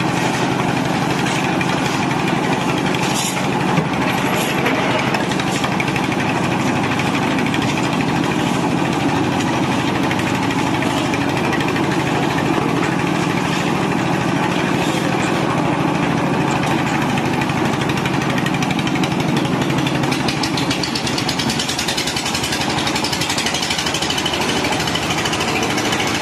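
Engine-driven tilting-drum concrete mixer running steadily as it mixes a batch for a concrete roof slab, a continuous loud mechanical din with no break.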